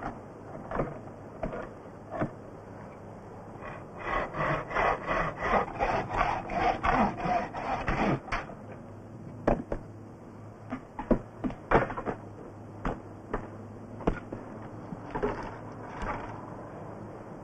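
Scattered knocks and scraping, with a fast run of repeated knocks in the middle lasting about four seconds, over a steady low hum.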